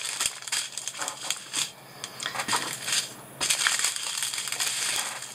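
Strips of small plastic zip bags of diamond painting drills crinkling as they are handled and shifted, dropping off briefly twice around the middle and picking up again.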